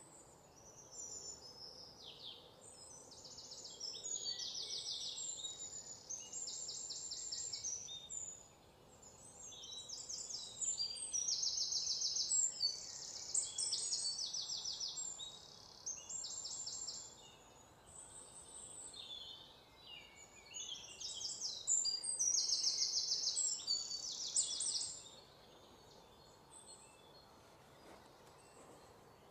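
Songbirds singing: high, rapid trilled phrases a second or two long, repeated with short pauses over a faint steady outdoor background, the song dying away near the end.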